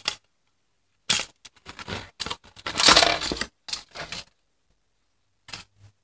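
Clear plastic blister packaging crinkling and crackling as it is pried apart by hand to free a small USB flash drive. The crackles come in a run starting about a second in, loudest around the middle, with a few short ones near the end.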